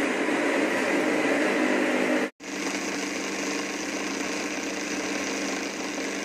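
Electric countertop blender with a glass jar running steadily, grinding a thick mayonnaise sauce with onion and garlic. It cuts out for an instant about two seconds in, then runs on a little quieter.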